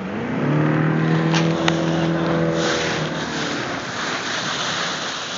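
Motorboat engine throttling up just after the start, its note holding steady for a few seconds and then easing off, giving way to a rush of water and wind. A single sharp click about halfway through.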